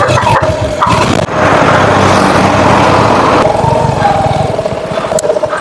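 Royal Enfield Hunter 350's single-cylinder engine running as the motorcycle rides along, with loud, steady wind rush on the microphone.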